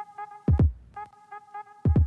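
Electronic background music: deep bass drum hits that drop in pitch, struck twice in quick succession about half a second in and again near the end, over short repeating synth notes.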